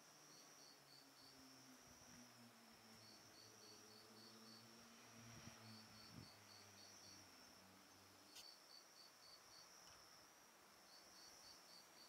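Faint crickets singing: one chirping in runs of about five quick pulses, repeated every two seconds or so, over a steady high trill from other insects.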